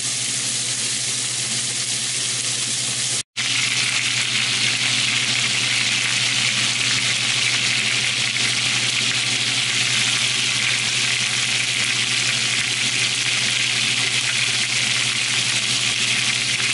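Chicken thighs frying skin-side down in bacon fat in a stainless steel skillet, a steady sizzle. It cuts out for a moment about three seconds in, then comes back louder and brighter.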